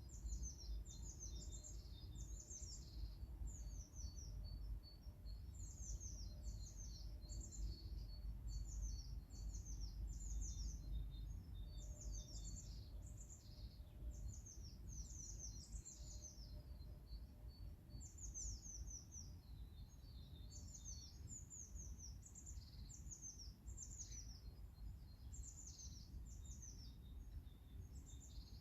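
Songbirds singing: clusters of high, quickly falling chirps, repeated again and again, over a steady low rumble.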